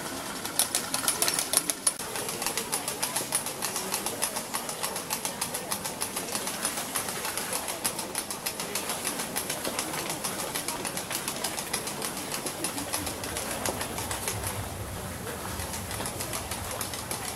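A rapid, even clatter of percussive clicks, several a second, loudest and sharpest in the first couple of seconds and growing softer near the end.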